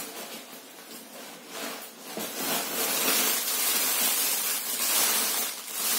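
Rustling and crinkling of packaging as the next item of hiking gear is pulled out and handled, quieter at first and louder from about two seconds in.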